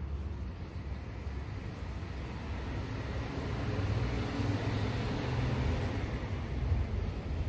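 Steady low background rumble, with a rushing noise that swells about halfway through and eases near the end.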